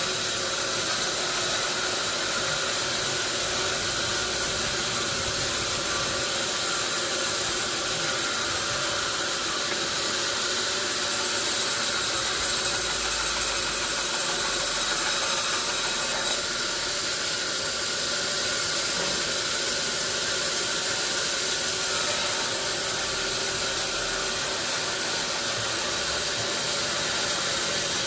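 Sawmill machinery running steadily: a constant hiss with a few unchanging tones, with no break or change in pace.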